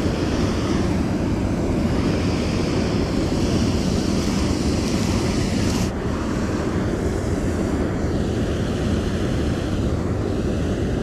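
Water rushing steadily over a small waterfall on a creek, an even roar with no pauses; its upper hiss softens about six seconds in.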